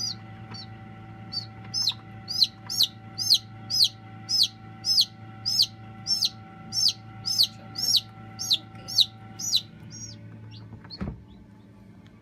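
Newly hatched chick peeping: a steady series of loud, high, falling peeps, about two a second, that thin out and stop about ten seconds in. A steady low hum runs underneath.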